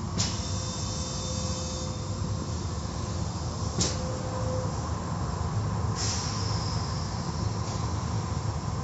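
Automatic car wash equipment running: a steady low rumble of machinery with bursts of hissing spray starting just after the beginning and again about six seconds in, and a short sharp hiss near the four-second mark.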